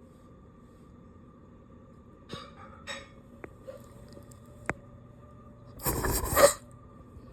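One short, sharp burst of breath from a dog, about six seconds in, after a few light clicks, over a faint steady hum.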